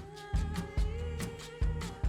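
Background music with a steady, fast beat and a sustained melody line over it.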